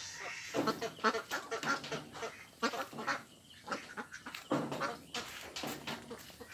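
A flock of domestic ducks quacking in many short, irregular calls.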